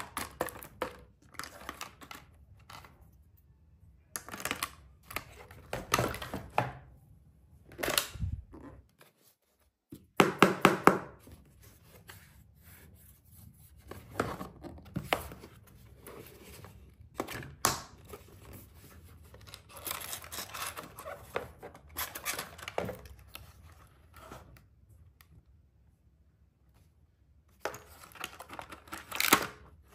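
Hard plastic toy pieces and plastic toy carry cases being handled: irregular clicks, knocks and rustles as parts are lifted out, set down and a case is opened.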